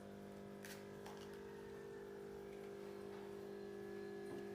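A faint steady hum with several even pitches, with a couple of light clicks about a second in.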